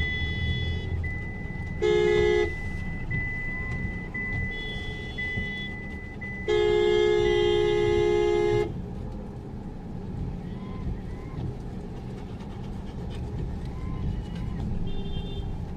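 Vehicle horn sounding twice over the low rumble of the car's engine and road noise, heard from inside the car: a short toot about two seconds in, then a longer blast of about two seconds.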